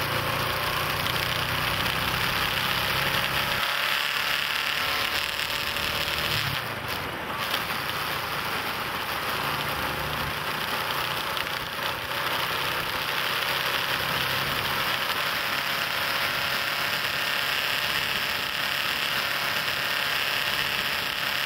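Vehicle engine running with steady wind and road noise while driving; the low engine hum drops away about four seconds in.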